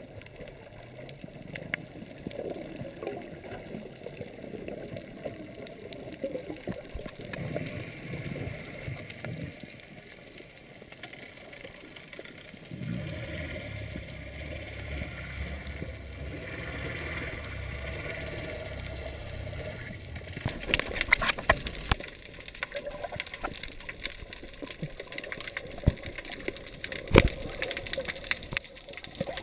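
Muffled underwater water noise through a camera's waterproof housing, with a steady low hum from about 13 to 20 seconds in, then a scatter of sharp clicks and knocks toward the end.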